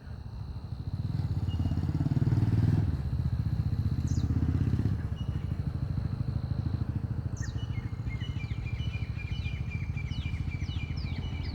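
A motor vehicle's engine running steadily, swelling louder for a few seconds about a second in. From about eight seconds in, a bird gives a rapid run of short, high, falling calls over it.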